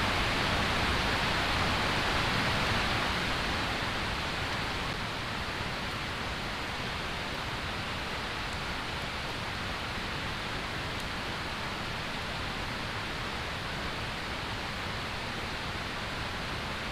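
Steady rushing of a flowing mountain stream, easing slightly about four seconds in.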